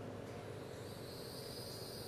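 Steady faint outdoor background hum and hiss. About a second in, a high-pitched, even insect trill starts and holds steady.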